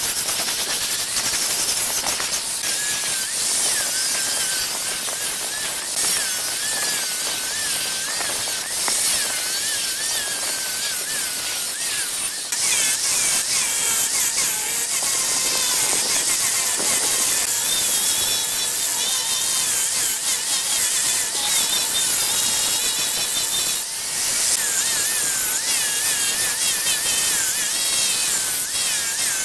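Electric angle grinder with a sanding attachment running against a large wooden workpiece: a high motor whine that wavers in pitch as the tool is pressed and moved, over a steady hiss of abrasive on wood.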